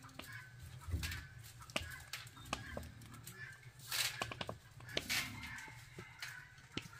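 Chickens clucking, with scattered light clicks and knocks, and two louder rustling bursts about four and five seconds in.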